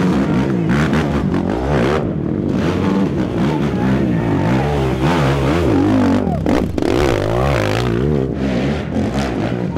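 Racing quad (ATV) engines revving hard under load on a steep dirt climb, the pitch rising and falling again and again as the riders work the throttle.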